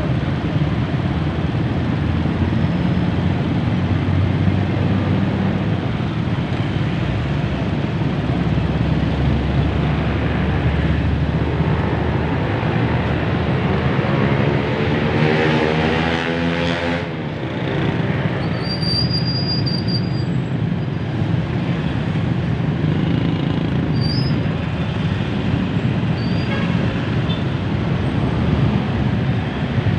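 Dense, slow-crawling road traffic: a steady mix of vehicle engines running, with one louder vehicle sweeping past about halfway through.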